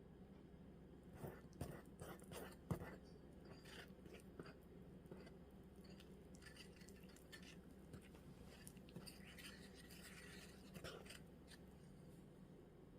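Faint kitchen handling noises over a low steady hum: a few light taps and knocks in the first three seconds, then soft scraping and rustling.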